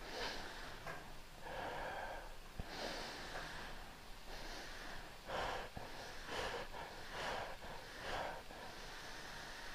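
Faint deep breathing in and out through an LG PuriCare wearable air purifier mask, a soft breath about every second, with the mask's small fan motor whirring up along with the breaths to assist them.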